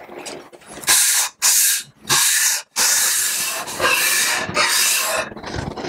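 Cast-iron sole of a Sargent No. 400-series hand plane scrubbed back and forth on 120-grit sandpaper wetted with WD-40, lapping it flat: a run of about six gritty scraping strokes, each under a second.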